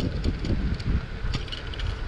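Wind buffeting the microphone of a moving bicycle, with a gusting low rumble and a scattering of light ticks and rattles.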